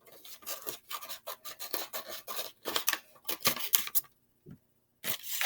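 A sheet of paper being folded, creased and cut with scissors: a quick run of scratchy rubs and snips, with a pause of about a second near the end.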